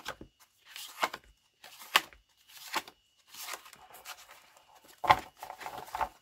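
Old paper Milton Bradley alphabet flashcards rustling and slapping as they are flipped through and laid down, a short papery rustle about once a second. The loudest slap, about five seconds in, is the stack being gathered and knocked square.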